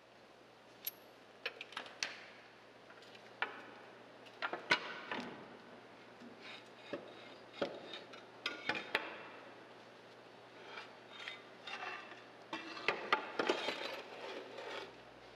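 Irregular metallic clinks and clanks: a wrench working on bolts and a steel side plate being handled and lifted off a street sweeper's elevator.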